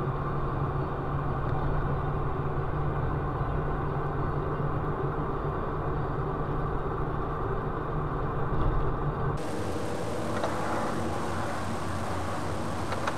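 Steady engine and road noise of a car driving along, heard from inside the cabin. About nine seconds in it cuts abruptly to a different recording, a thinner and hissier traffic background with a few crackles.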